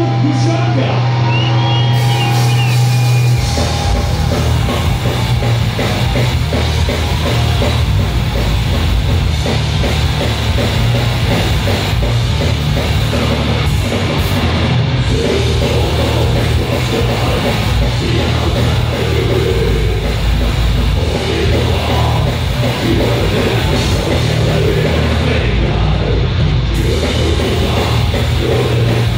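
Death metal band playing live, heard from within the audience: a held, distorted low chord rings for the first few seconds, then the full band comes in with fast drumming and heavy distorted guitars.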